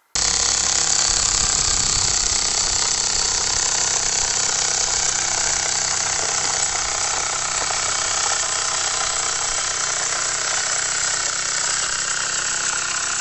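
Mamod TE1a live-steam toy traction engine running under its own steam, towing a loaded wagon. Its steam exhaust and works give a steady, rapid mechanical chuffing with a strong hiss.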